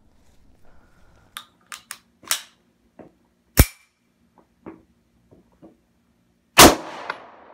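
Beretta M1951 9mm pistol being handled with small metallic clicks and one sharp clack, then a single gunshot about two-thirds of the way through, with a long echoing tail.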